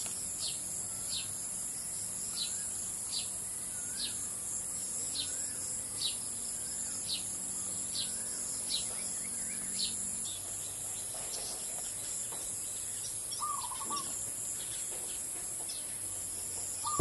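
Countryside ambience at dusk: a steady high-pitched insect drone, with a bird repeating a short, sharp falling chirp about once or twice a second that stops about ten seconds in, plus a few softer chirps from other birds.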